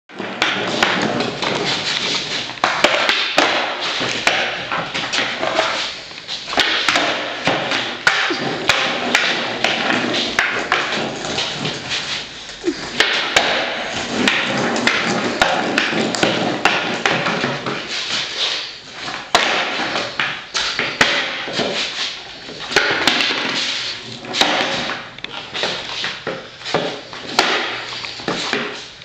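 Skateboard wheels rolling over a concrete floor, with frequent sharp clacks and thuds as the board's deck and tail hit the concrete during trick attempts.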